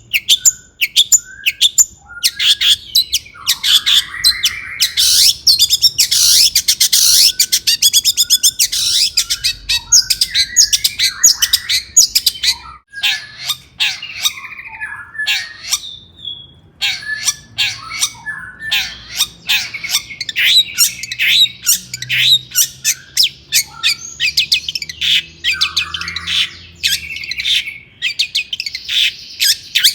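Long-tailed shrike singing busily: a fast run of short, sharp chirps and whistled notes, broken by harsh rasping calls near the start and again near the end.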